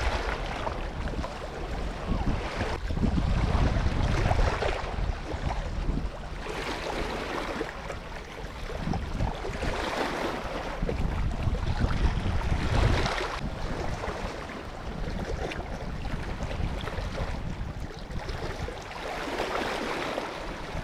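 Small sea waves washing and lapping against shoreline rocks, swelling every few seconds, with wind buffeting the microphone, heaviest in the first few seconds.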